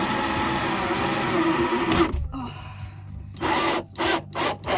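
Power drill driving a self-tapping screw into sheet-metal, running steadily under load for about two seconds, then stopping abruptly. A few short bursts of the drill follow as the tough screw is pushed in.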